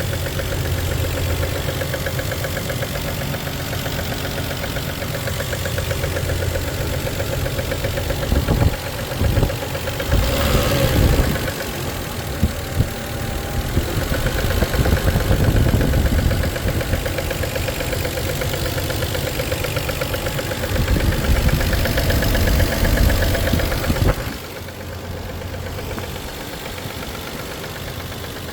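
Toyota 1JZ-GE VVT-i straight-six running warm, with a knock that shows up after warm-up. The engine gets louder in several spells and drops quieter about 24 seconds in.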